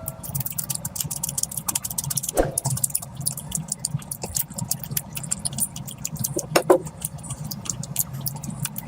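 Close-miked eating sounds: rapid wet chewing and lip-smacking clicks from someone eating curry, over a steady low hum.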